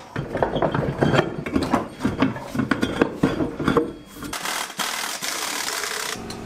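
Irregular metallic rattling and clicking with rubbery squeaks as a truck tyre is worked on a manual tyre-changing machine, then about two seconds of steady hiss.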